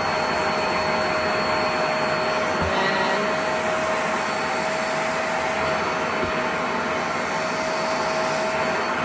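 Vax SpotWash spot carpet cleaner running steadily: its suction motor gives an even rush of air with a constant whine as the hand tool is drawn over the carpet.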